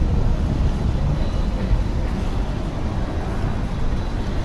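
Steady low rumble of city street traffic, with no single event standing out.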